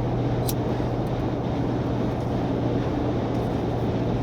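Steady road and engine drone inside a moving car's cabin at highway speed, with a low hum throughout and one brief click about half a second in.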